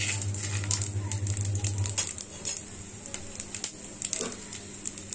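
Panch phoron seeds dropping into hot oil and sizzling, with many small sharp pops and crackles as the seeds splutter. A low hum stops about two seconds in.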